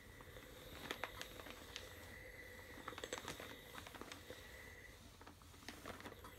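Steam iron held over a quilted fabric corner, giving a faint steady hiss of steam with scattered small clicks and spits, easing off about five seconds in. The steam softens the heat-moldable stabilizer inside so the corner can be shaped.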